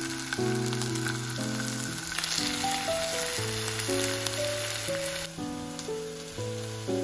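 Floured pork slices sizzling as they fry in olive oil in a non-stick frying pan; the sizzle cuts off about five seconds in. Gentle piano music plays underneath.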